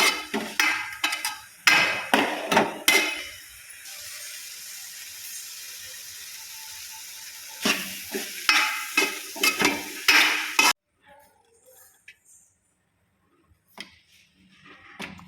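Food being stirred and scraped against steel dishes, with clattering and scraping in two spells. The sound cuts off abruptly about two-thirds of the way through, leaving only a few faint knocks.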